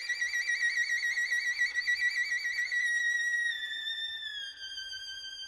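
Background music: a violin holding a high note with wide vibrato, which slides down to a lower, steadier note about four seconds in as it fades.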